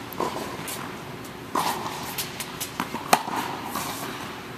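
Tennis balls being hit and bouncing on an indoor court: four or five sharp knocks, each followed by a short ring of echo, the loudest about three seconds in.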